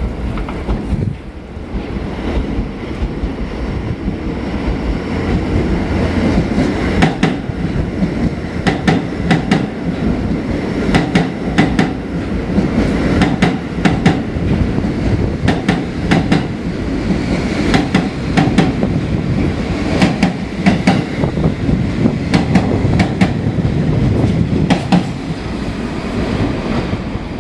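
New York City subway train running on the tracks: a steady low rumble, with the wheels clacking over rail joints in a long run of sharp clicks from about seven seconds in.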